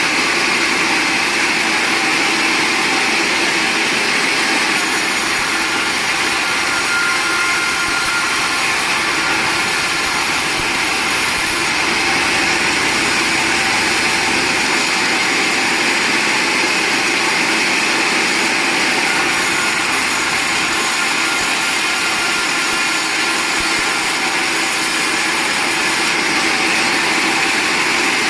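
Sawmill machinery running steadily, an even mechanical noise with no pauses or changes.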